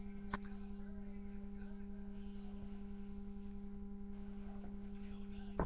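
Steady electrical hum, a low drone with higher overtones, broken by two short sharp clicks, one just after the start and one near the end.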